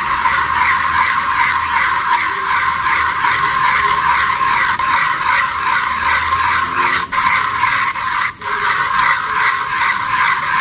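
A 1Zpresso hand coffee grinder crunching roasted coffee beans as its crank is turned, a steady gritty grinding with two brief breaks about seven and eight seconds in. The grind is set espresso-fine, and this sound is what tells the grinder's owner the grind is right for espresso.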